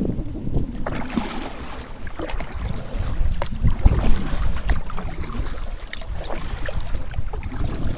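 Water splashing and lapping against a kayak, with scattered sharp slaps, while wind buffets the microphone in an uneven low rumble.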